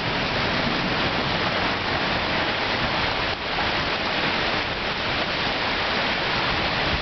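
Heavy thunderstorm downpour: a loud, steady hiss of rain.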